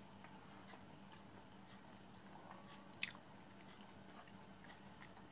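Faint eating sounds from a person eating by hand from a steel plate, with one brief sharp click about three seconds in.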